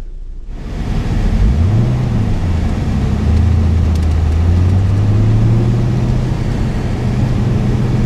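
Car engine revving briefly about a second and a half in, then running steadily with its pitch climbing slowly.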